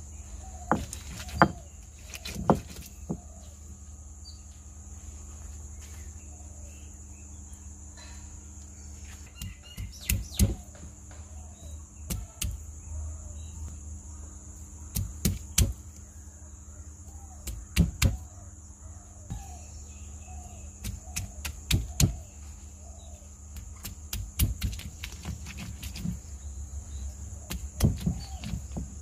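Stone roller on a flat grinding stone, crushing chopped lovi fruit: a steady rolling grind broken by clusters of sharp stone-on-stone knocks, with faint bird chirps.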